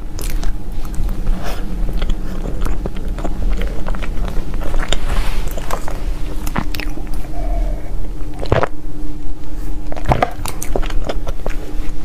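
Close-up eating sounds: a person biting and chewing crunchy food, with irregular crackles and a few louder crunches near the end, over a steady low hum.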